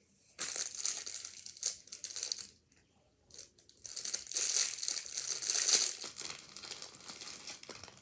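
Clear plastic packaging of a small fidget toy crinkling as it is handled and pulled open, in two spells of crackling, the second longer and louder, then fainter rustling.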